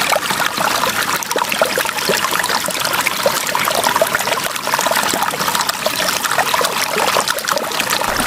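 Water trickling and splashing steadily, with many small drips and splashes.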